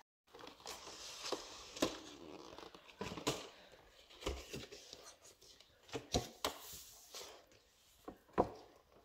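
Cardboard chocolate advent calendar being handled on a table: scattered knocks, taps and card rustling, with a sharper knock near the end.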